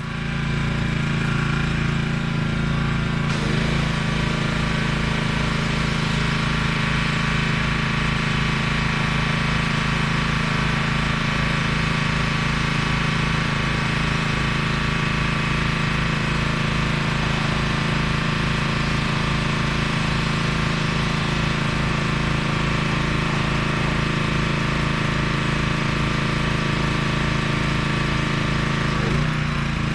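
Gas-engine 2800 psi pressure washer running steadily at full throttle, its motor and pump giving an even low pulsing drone.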